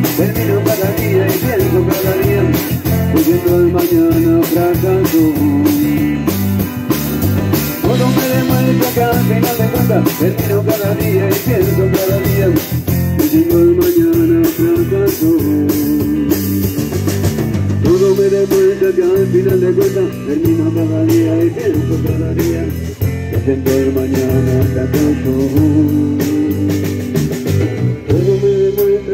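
A band playing music: guitar over a steady drum-kit beat.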